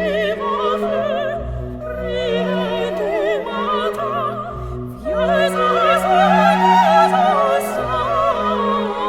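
Operatic music: a singer with strong vibrato over an orchestral accompaniment of sustained low notes.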